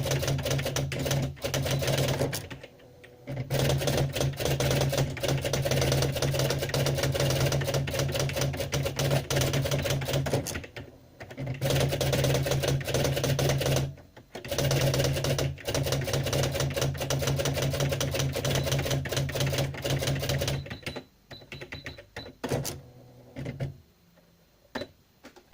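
Typewriter typing: a fast, continuous clatter of keystrokes over a steady low hum. It breaks off briefly three times, and near the end thins to a few scattered strokes.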